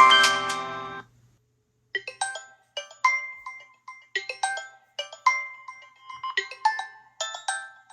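A smartphone ringtone cuts off abruptly about a second in as the call ends. After a second of silence another phone's ringtone starts: a sparse melody of short, bright, bell-like notes with gaps between them.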